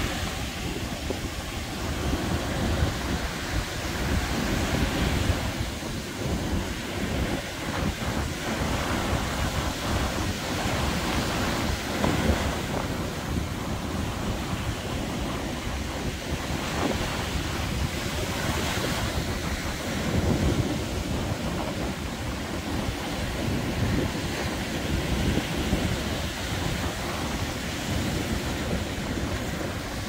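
Ocean surf breaking and washing up a sandy beach, a continuous wash that swells every few seconds as waves break, with wind buffeting the microphone.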